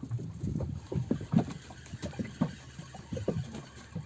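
Water lapping and slapping against the hull of a small boat in short, irregular splashes.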